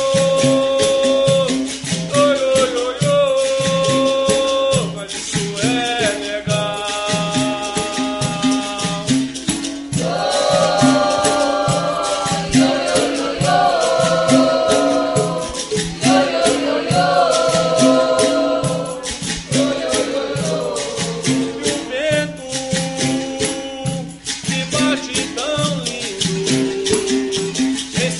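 Capoeira song: voices singing together over steady rhythmic percussion, with a shaker rattling throughout.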